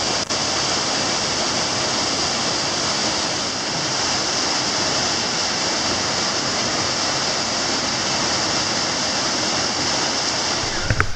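A small waterfall of 3–4 m in a cold mountain torrent, pouring steadily into its pool: an even, unbroken rush of falling water.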